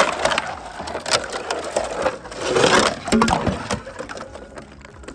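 Sheets of ice being smashed, cracking and shattering in several sharp, crunchy crashes.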